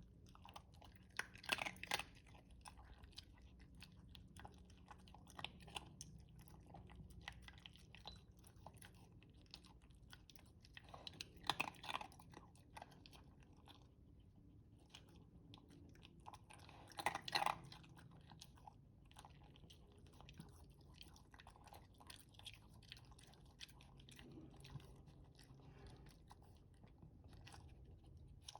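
A dog chewing and crunching food slowly, in scattered small bites, with three louder bouts of crunching about two, twelve and seventeen seconds in. He eats this slowly because medicine is mixed into the food.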